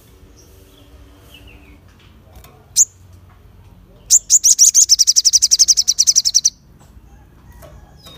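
Male olive-backed sunbird (sogon) calling: a single sharp, high, falling chirp, then about a second later a loud, fast, high trill of about twelve notes a second that lasts about two and a half seconds and stops abruptly.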